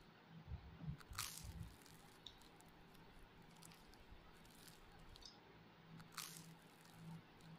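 Faint chewing and squishing of fish curry being eaten by hand, with two short sharp sounds, about a second in and about six seconds in.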